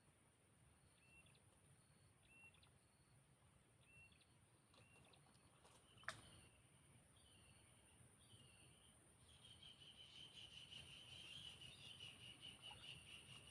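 Faint outdoor wildlife sounds: short high chirps about once a second, then a continuous high trill of insects or birds from about two-thirds of the way in. A single sharp click comes near the middle.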